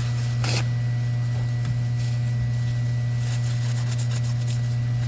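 Steady low hum with a thin high tone running through it. A short rustle, like a cloth or paper towel wiping, comes about half a second in, with a few faint light ticks later.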